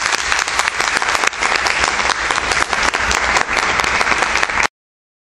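Audience applauding, a dense, loud clapping that cuts off suddenly a little before the end.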